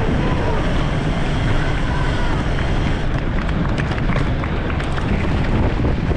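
Wind buffeting the microphone on a mountain bike ridden fast, with its tyres rolling over paved street. Faint voices of onlookers fade in the first couple of seconds, and from about halfway the bike rattles over the paving.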